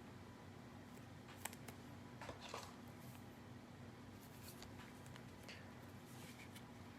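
Near silence with a few faint clicks and rustles of trading cards being handled, about one and a half and two and a half seconds in.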